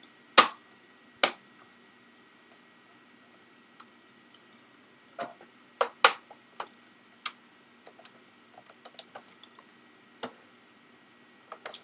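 Sharp plastic clicks and knocks of Xbox 360 Slim case parts being handled and pressed back into place by hand. Two loud clicks come in the first second and a half, a cluster follows about halfway through, and a single click comes near the end, with fainter ticks between.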